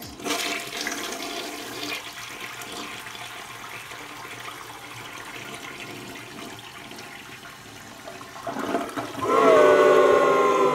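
Toilet flushing, water rushing and swirling through a bowl full of soggy tortilla chips. Near the end comes a louder rush with a whistling tone that falls slightly.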